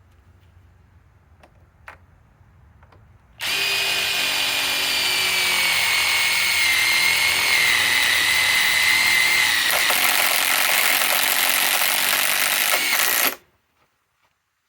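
Cordless impact driver driving a #10 one-inch sheet metal screw into metal: it starts about three seconds in, hammers with a high whine for about ten seconds, and stops abruptly.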